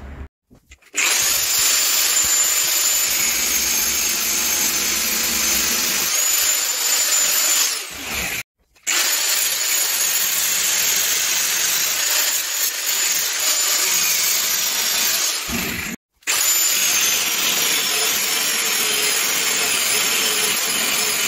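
Angle grinder running and cutting into an aluminium radiator's mounting bracket, its high motor whine sagging in pitch as the disc bites and then recovering. The sound cuts out suddenly three times: just after the start, about eight seconds in and about sixteen seconds in.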